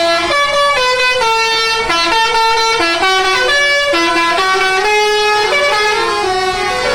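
A bus's telolet musical air horn (basuri type) playing a loud tune, its pitch stepping quickly from note to note several times a second without a break.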